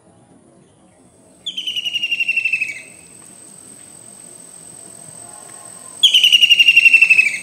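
White-throated kingfisher calling: two loud, rapid rattling trills, each falling in pitch and lasting over a second, the first about a second and a half in and the second near the end. A thin, steady high whine starts about a second in.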